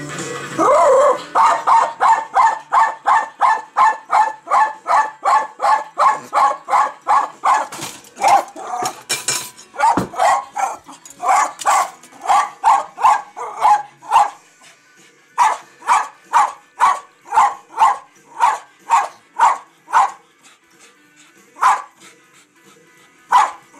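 Jack Russell terrier barking rapidly, short sharp barks at about three a second in long unbroken runs, with a brief break about two-thirds through and only a few spaced barks near the end.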